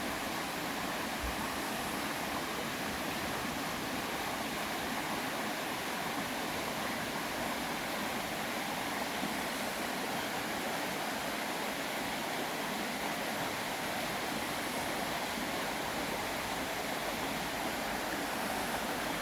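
Mountain valley stream water rushing steadily.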